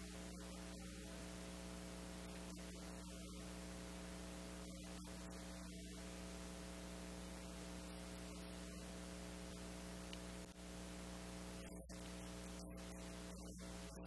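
Faint, steady electrical mains hum with a hiss underneath, the noise floor of a quiet room recording.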